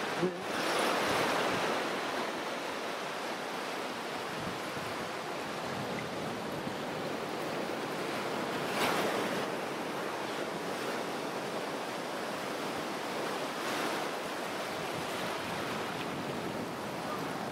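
Shallow ocean surf washing in and out on a beach, a steady rush with three louder surges of water: just after the start, about halfway, and a few seconds before the end.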